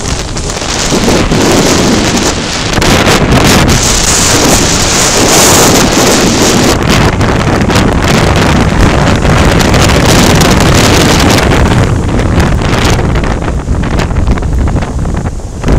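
Strong storm wind buffeting the microphone in a loud, continuous rush over heavy surf breaking.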